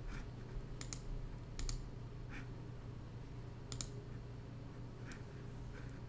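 Scattered clicks of a computer mouse and keyboard, about eight at irregular spacing, over a low steady hum.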